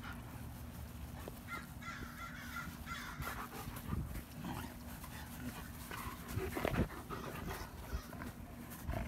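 Two German Shepherds eating raw chicken from a steel bowl: irregular chewing, tearing and mouthing sounds, louder about six to seven seconds in.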